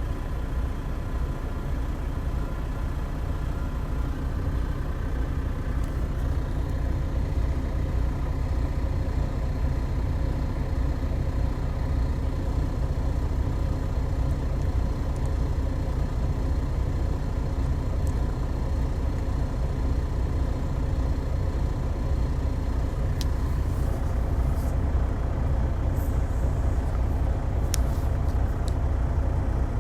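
Heavy truck's diesel engine idling, a steady low rumble. A few light clicks come in near the end.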